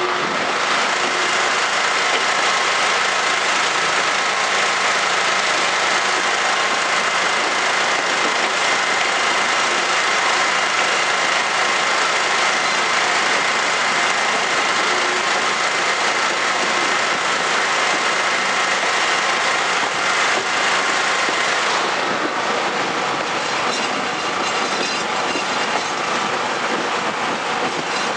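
Passenger train running, heard from aboard at an open window: a steady rush of wheel and rail noise, with a high steady whine that stops about three-quarters of the way through.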